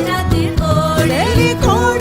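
Punjabi folk-pop song with a steady drum beat and pitched instrument lines, and a melodic line that slides up and down partway through.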